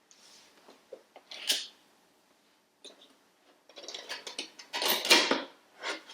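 Camera box packaging being handled and opened: rustling and scraping of cardboard and paper in short bursts, with a few soft clicks, the longest and loudest stretch about four to five and a half seconds in.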